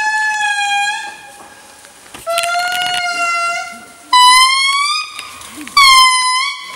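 Indri lemurs singing: a series of about four loud, long held notes, each starting suddenly and lasting a second or more, some rising in pitch toward the end.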